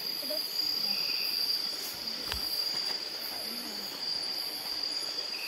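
Night insects, crickets or similar, trilling in one steady high-pitched chorus, with one sharp click a little after two seconds in.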